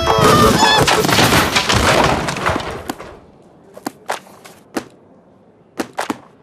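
Cartoon sound effect of a load of books and shelving crashing down: a dense clatter of many thumps for about three seconds that dies away, followed by a few scattered light clicks.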